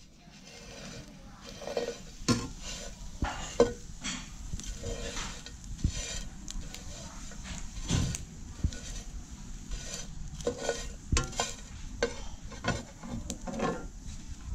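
A metal spoon stirring crickets being dry-roasted in a frying pan: irregular scrapes and light clinks of the spoon against the pan, about one or two a second.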